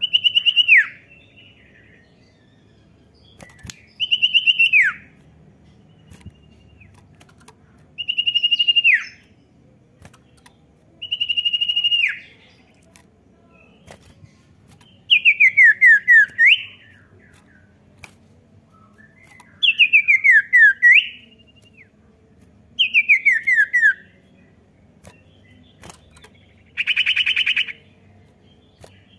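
Common iora calling in a series of phrases a few seconds apart. The first four are long held whistles that drop sharply at the end. Then come three runs of quick falling notes, each ending in an upward sweep, and a harsh buzzy note near the end.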